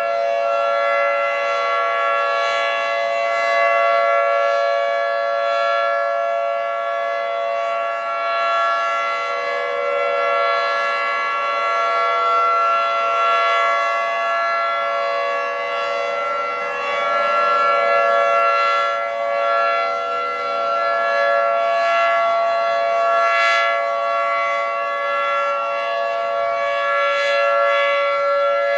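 Federal Signal 2T22 dual-tone outdoor warning siren sounding a steady, unwavering tone, the Alert signal of a monthly test. Its loudness swells and eases gently every few seconds while the pitch holds.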